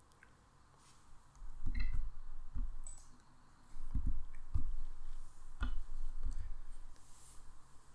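Soft low thumps and light clicks, about half a dozen at uneven intervals, starting after a quiet first second or so.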